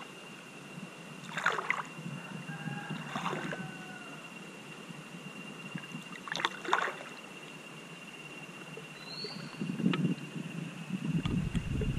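River water lapping and splashing right against a floating action camera, with a few separate splashes in the first seven seconds and heavier low sloshing near the end. A thin steady high tone sounds underneath.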